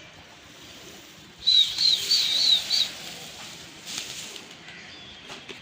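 A loud, breathy, high warbling whistle lasting about a second and a half, starting about a second and a half in.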